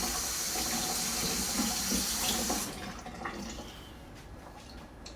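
Kitchen tap running into a sink, then turned off about halfway through; a few faint small clicks follow.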